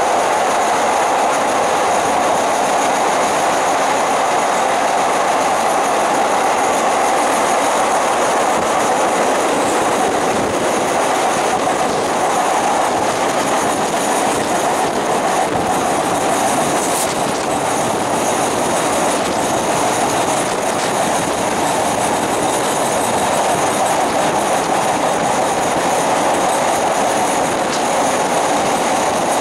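Thai ordinary passenger train running steadily on an elevated concrete track, heard at an open carriage window: a constant rushing rumble of wheels on rail. A faint thin high whine sits over it, with a few brief clicks.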